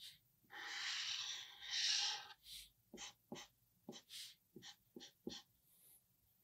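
Felt-tip marker drawing on paper: two longer scratchy strokes as a paw outline is drawn, then a run of about eight short quick strokes for the toe lines.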